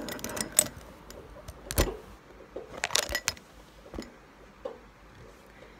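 Handling noise: a few scattered light knocks and clicks as things are moved about close to the microphone. The two strongest come about two and three seconds in.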